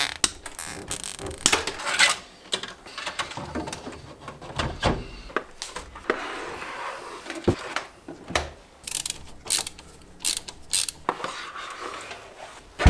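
Irregular clicks, knocks and rattles of hands working on a PC case and its parts, with light rustling between them.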